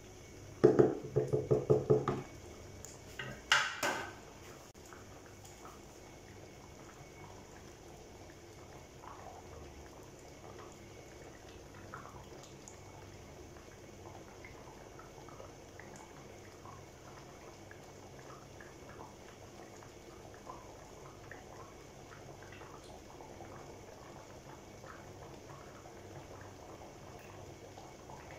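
A wooden spoon stirring and knocking against an aluminium pot: a quick run of strokes about a second in, then one sharp knock near four seconds. After that the stew simmers in the pot with faint bubbling and small pops.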